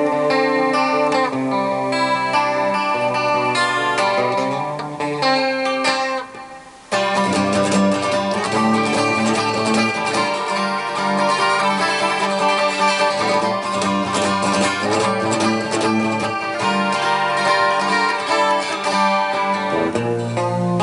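Background instrumental music. It thins and dips in level about six seconds in, then comes back fuller.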